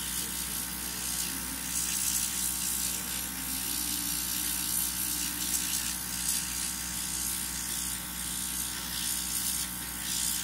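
Small airbrush compressor running with a steady buzzing hum, while the airbrush hisses in spells as it sprays paint.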